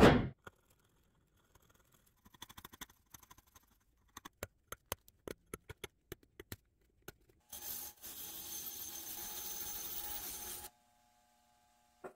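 A short loud whoosh at the start, then a hand scraper working over a painted metal part with a run of scrapes and sharp ticks. About seven and a half seconds in, a steady hiss lasts about three seconds.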